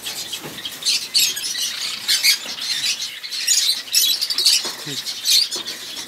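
Many caged finches chirping at once, a dense chatter of short, high-pitched calls overlapping.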